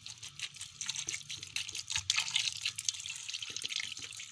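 Water being poured into a heavy cooking pot of raw minced meat, onions, garlic and a marrow bone, splashing and trickling continuously as the liquid fills around the meat.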